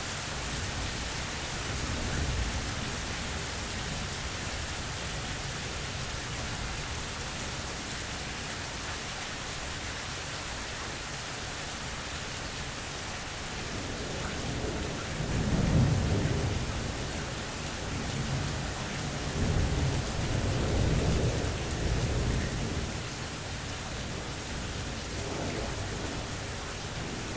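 Steady rain falling during a mild thunderstorm, with rolling thunder: a low rumble swells about halfway through to the loudest point, and a second, longer rumble follows a few seconds later.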